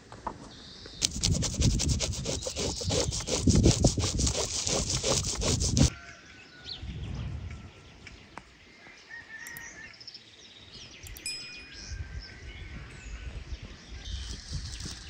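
Rapid rasping scrapes on a huge whole fish for about five seconds, stopping abruptly. After that, scattered bird chirps sound over quiet outdoor air.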